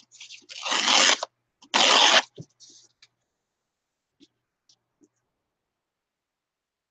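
Painted paper torn by hand, two ripping sounds in the first two seconds or so, followed by a few faint ticks of paper being pressed and handled.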